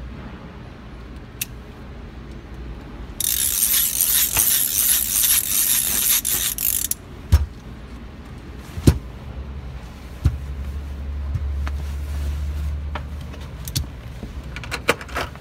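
Fine-tooth socket ratchet spun freely for about four seconds, its pawl clicking so fast it runs together into a continuous rattle. After that come a few separate sharp clicks and clinks of chrome tools being handled, with a low hum for a few seconds in the middle.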